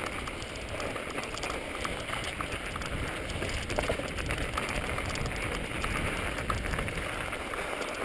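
Mountain bike riding on snow-covered singletrack: tyres crunching over snow, with scattered small clicks and rattles from the bike.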